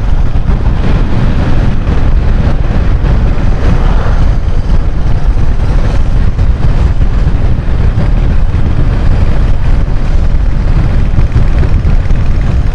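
Steady wind buffeting on the microphone mixed with the noise of a moving vehicle on the road, a continuous low rumble with no pauses.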